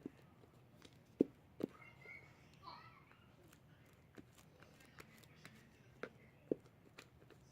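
Hands kneading and stretching sticky fluffy slime, giving a few sharp pops and clicks. A faint voice is heard in the background about two seconds in.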